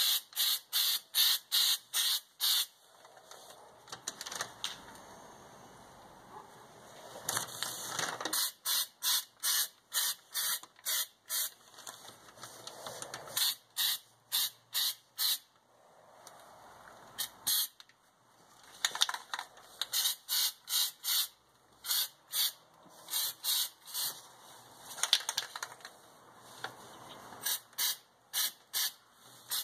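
Aerosol can of spray-on bed liner spraying in quick short hisses, about three or four a second, in several runs with pauses between them.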